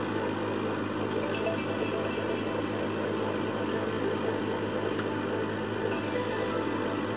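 Aquarium air pump humming steadily, with bubbling from the air stone in the tank.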